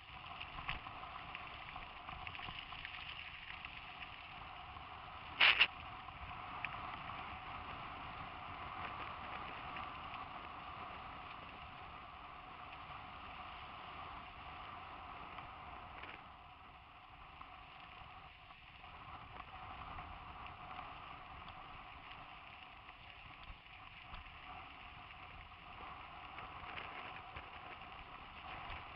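Mountain bikes rolling over a dry dirt and gravel track: a steady noise of tyres and riding, with wind on a helmet-mounted microphone, and one sharp knock about five and a half seconds in.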